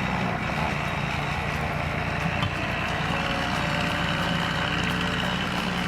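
An engine running steadily at an even speed, like a vehicle or machine idling.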